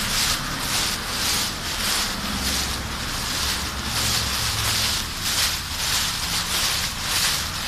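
Footsteps crunching through deep dry fallen leaves at a walking pace, about two crunches a second, over a low steady rumble.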